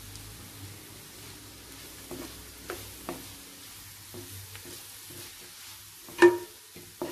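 Chopped cabbage, carrot and spring onions sizzling in oil in a kadhai while a spatula stirs them, scraping and tapping the pan now and then. About six seconds in the spatula strikes the pan with one loud, ringing clank.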